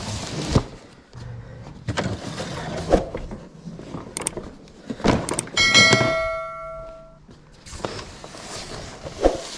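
Boxes and household items being lifted and set down, with scattered knocks and cardboard rustling. About halfway through, a metal object is struck and rings with a bright clang that fades over a second or so.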